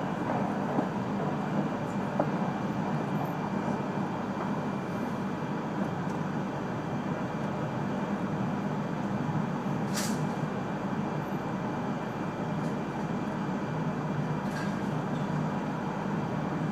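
Steady running noise heard inside the passenger cabin of an E3 series Shinkansen train travelling along the line. A single sharp click comes about ten seconds in.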